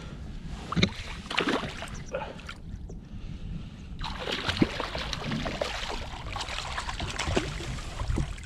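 Water sloshing and splashing around a kayak with scattered sharp knocks, over a steady low wind rumble on the microphone; the splashing grows denser about four seconds in.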